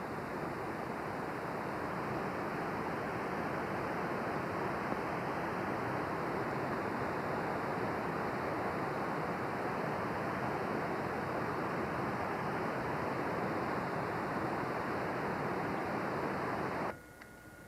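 Steady rushing of the North Fork Wilson River in flood, heard as an even roar of water through a camcorder microphone; it cuts off abruptly just before the end.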